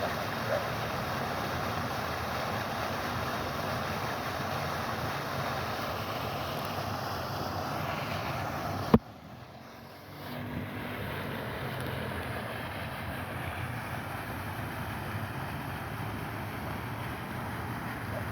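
Steady rushing outdoor background noise, with one sharp click about nine seconds in, after which the noise drops away for about a second and then returns.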